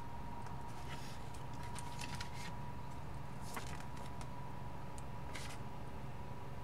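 Faint rustling and handling of paper booklets and package contents, a few soft brief rustles, over a steady faint electrical hum.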